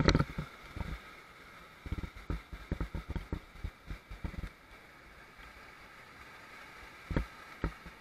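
Rushing whitewater of a river rapid around an inflatable raft, with a loud thump at the start and a run of irregular low thumps on the microphone from about two to four and a half seconds in, and two more near the end.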